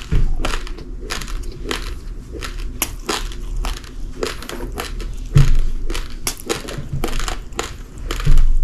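Close-miked chewing of uncooked rice grains: rapid, irregular crunches, several a second, with two louder low thumps about five and eight seconds in.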